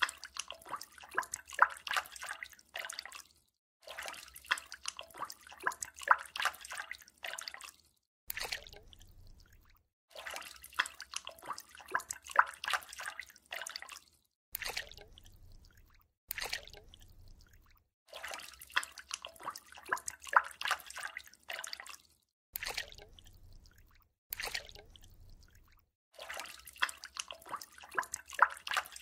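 Water splashing and dripping in quick, sharp little splashes. The sound breaks off in brief silent gaps several times.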